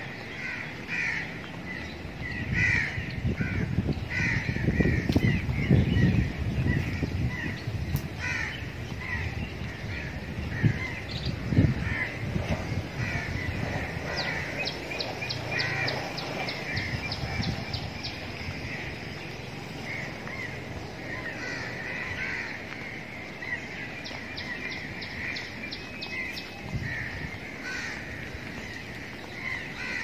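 Many birds chirping and calling in short, quickly repeated notes, with a fast high trill twice, once around the middle and once later. A low rumble swells in the first half and makes the loudest moments.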